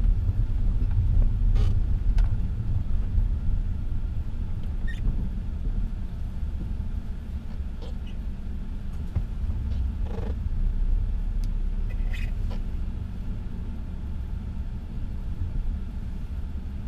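Low, steady rumble of an all-wheel-drive vehicle driving on packed snow, heard from inside the cabin, with a few faint clicks scattered through.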